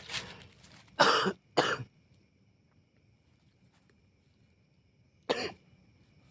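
A person coughing: two quick coughs about a second in, and one more near the end.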